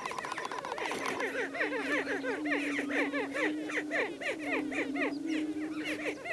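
Greater prairie-chickens calling: a low, steady booming moan from a displaying male under a dense chorus of quick, repeated cackling notes, several a second.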